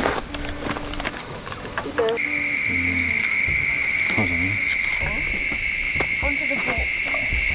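Steady chorus of crickets or similar insects: one continuous high trill throughout, joined about two seconds in by a second, lower steady trill. A few short, lower sounds come and go underneath.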